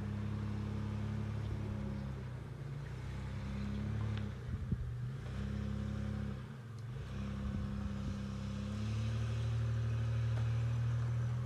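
Off-road vehicle engine running at low speed, its pitch shifting a couple of times as the load changes, with a few knocks about four to five seconds in.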